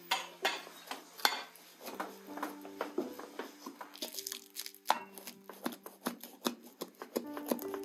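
Knife chopping food: a run of sharp, uneven knocks, two or three a second, over quieter background music with held notes.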